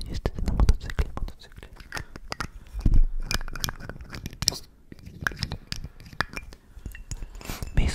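Fingernails tapping and scratching on a glass perfume bottle close to the microphone: quick, irregular clicks, with a heavier knock about three seconds in.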